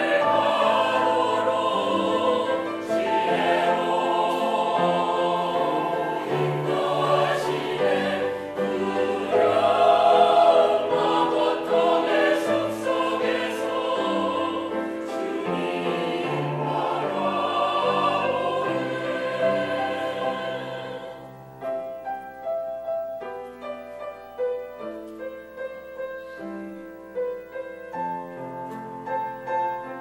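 Church choir singing a Korean hymn in parts with piano accompaniment. About 21 seconds in the voices stop and the piano plays on alone, quieter.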